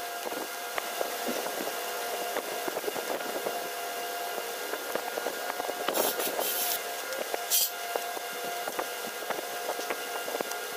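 Repair-shop work noise: a steady machine hum with scattered taps and clicks, and two short bursts of hissing, about six and seven and a half seconds in.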